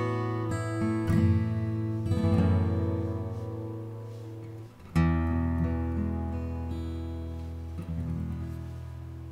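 Background music on acoustic guitar: plucked notes, then a chord struck about five seconds in and left to ring and fade.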